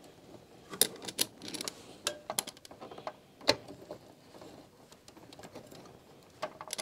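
Irregular small clicks and taps of a plastic cable connector and its cable being handled and pressed onto a USB 2.0 header on a motherboard inside a desktop PC case, busiest in the first few seconds.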